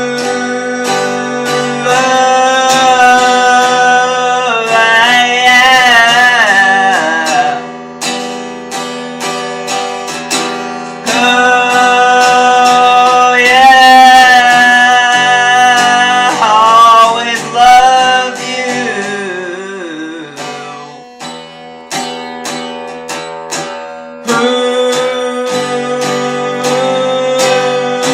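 Music: acoustic guitar strummed steadily, with a held melody line over it that wavers in pitch every few seconds.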